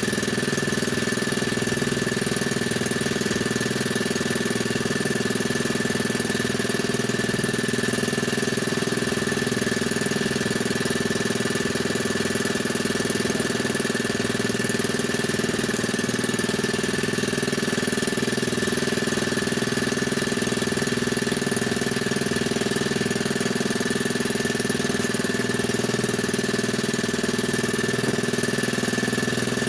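Small engine, most likely a fishing boat's motor, running at a steady speed with an even knock, unchanged throughout.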